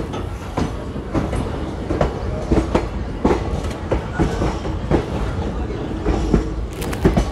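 Passenger train in motion, heard from inside the coach: a steady low rumble with irregular clacks and knocks of the wheels over the rail joints.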